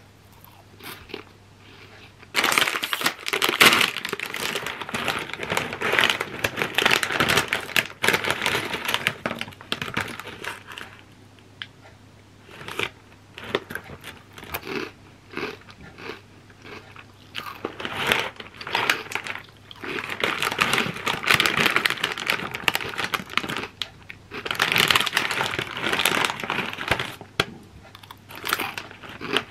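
Metallised plastic snack bag crinkling as it is opened and handled, in several loud bursts separated by quieter pauses.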